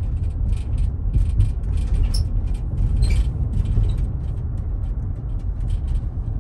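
Road and engine noise of a moving pickup truck heard from inside the cab: a steady low rumble with frequent faint clicks and rattles over it.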